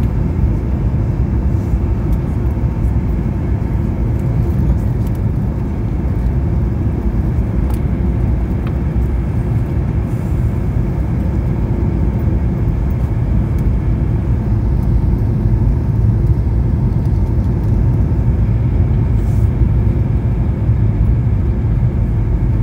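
Steady low rumble of engine and airflow noise inside a Boeing 737's cabin as it descends on approach to landing.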